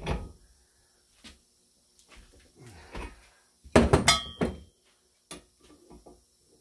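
Metal clicks and knocks from hand tools and a socket working a Lisle exhaust pipe expander on thick-wall steel exhaust pipe. About four seconds in there is a loud cluster of clanks with a brief metallic ring.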